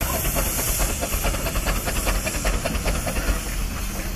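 Steam wagon running with a steady hiss of steam and a quick, regular beat of exhaust chuffs, about four a second, that fades out near the end.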